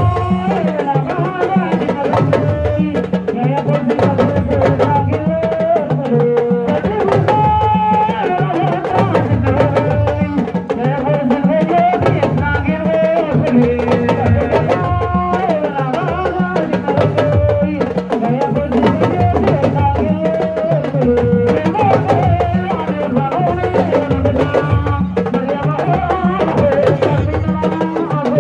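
Music with drums and percussion under a melodic line.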